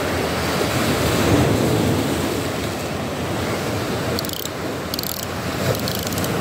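Rough sea surf washing onto the shore, a steady rush that swells slightly about a second in, with wind on the microphone.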